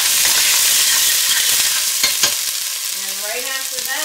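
Diced onions sizzling as they fry in hot olive oil in a stainless steel pot, stirred with a spoon that knocks against the pot a couple of times about two seconds in.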